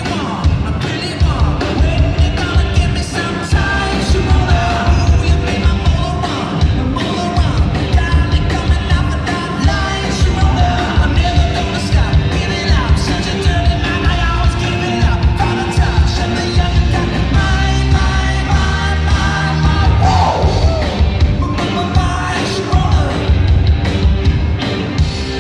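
Live rock band playing: a drum kit keeping a steady beat under electric guitar, with a male singer at the mic.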